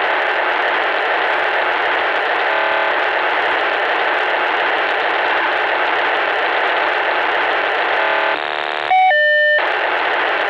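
A continuous hissing transmission received on a VHF radio and heard through its speaker; the uploader says it is not static, since it breaks the squelch at full setting, and guesses it is some sort of time-signal broadcast. It turns briefly buzzy about 8 seconds in, then gives a loud steady beep of two tones for about half a second before the hiss resumes.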